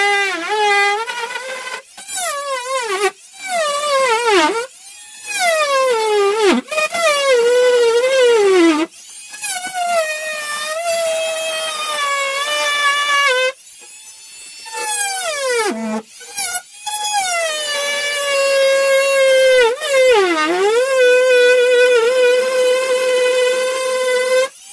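Oscillating multi-tool cutting through drywall: a loud, high whine that sags in pitch each time the blade loads up in the board, stopping and restarting many times as the cut is worked along.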